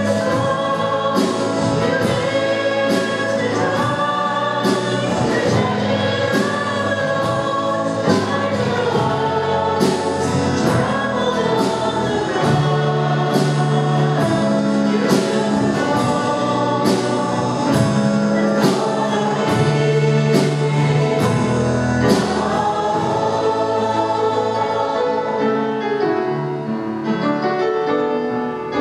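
Church worship band and singers performing a worship song, the voices sounding like a choir over the band, with a steady drum beat about once a second. The drum beat drops out about 24 seconds in, leaving voices and sustained chords.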